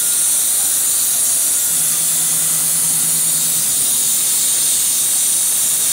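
CNC plasma torch cutting steel plate: a steady, loud hiss of the plasma arc and its air jet, unbroken throughout, with a faint low hum underneath at times.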